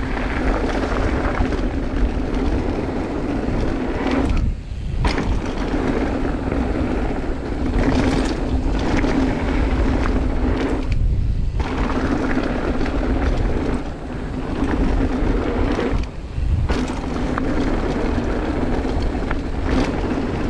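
Mountain bike riding fast down a packed-dirt trail: tyres rolling and rattling over the dirt, with wind buffeting the camera microphone. The noise briefly drops away three times, about four and a half, eleven and sixteen seconds in.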